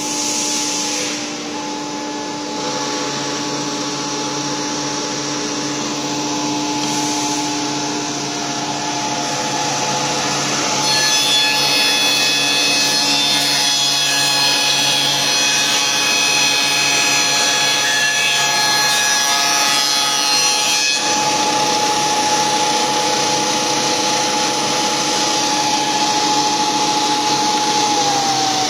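MB9010 round stick machine running: a steady motor hum with a whine, which gets louder and higher, with a rushing hiss, for about ten seconds in the middle as the cutter works the wood. Near the end the pitch of the hum begins to fall.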